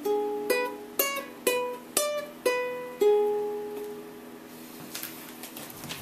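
Ukulele playing a blues phrase of single plucked notes, about two a second. It ends on a last note about three seconds in that rings out and fades. A few faint clicks follow near the end.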